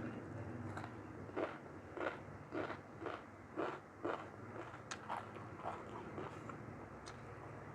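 Close-miked chewing of a mouthful of mutton curry and rice: a run of short chomps, about two a second, that fade out near the end.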